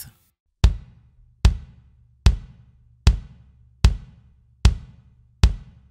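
A Gretsch Renown 22x18 bass drum is played on its own with the pedal: seven single strokes at a steady pace, a little over one a second, each dying away quickly. It has a clear Remo Powerstroke 3 batter head tuned low, a slightly higher-tuned ported resonant head, and muffling inside.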